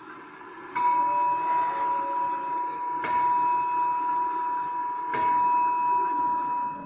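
A bell struck three times, about two seconds apart, each strike ringing on with a clear steady tone until it dies away near the end.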